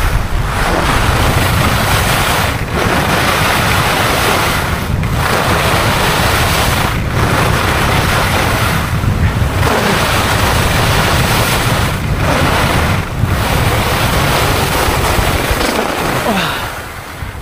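Wind rushing over a helmet-mounted camera and skis hissing over the snow on a fast run down a steep black piste. The rush dips briefly about every two seconds with each turn, and it drops off near the end as the skier slows.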